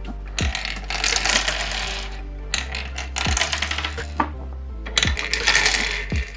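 Small hard plastic game pieces clattering and rattling in three bursts of rapid clicks, over background hip-hop music with a steady beat.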